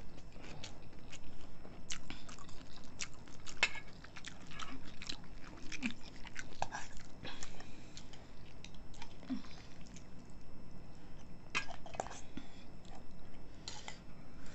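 Two people chewing and biting mouthfuls of egg noodles and crunchy kimchi, with wet mouth sounds. Irregular light clicks of spoons and forks against steel bowls and a kimchi jar run throughout.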